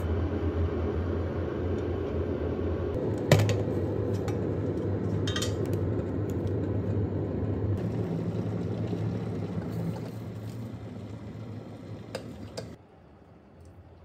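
Electric kettle heating water, a steady rumble that fades over the last few seconds and then stops suddenly. Sharp clinks of a metal spoon against the canister and glassware come about three seconds in, around five seconds, and twice near the end.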